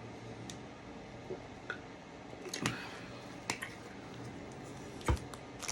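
Chewing candy: a few soft, scattered mouth clicks and smacks over quiet room noise.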